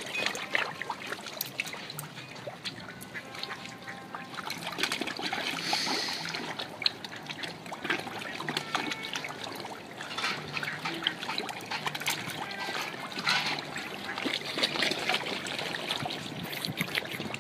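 A crowd of carp jostling at the surface: constant splashing and wet sucking, popping sounds from their gulping mouths, with a few louder splashy flurries.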